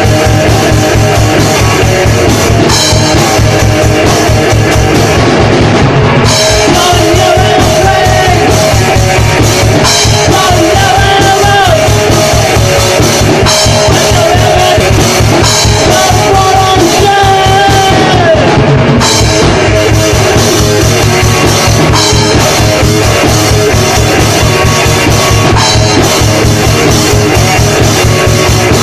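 Crust punk band recording: distorted electric guitar over a drum kit, playing continuously.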